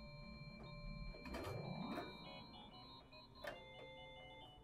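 Experimental electronic sound piece: several held synthetic tones, with a rising sweep about a second in. Sharp clicks come around the middle and near the end, and short stepped beeping tones follow the sweep.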